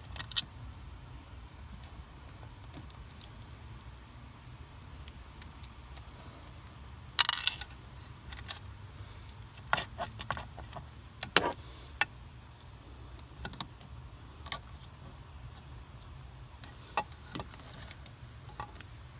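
Scattered clicks, knocks and small metallic clinks, with one longer, louder scrape about seven seconds in, as a folding plastic cup holder is fastened in place by hand with screws.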